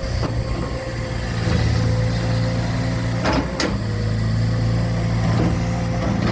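An engine running steadily at a constant speed, with two sharp knocks close together about three and a half seconds in.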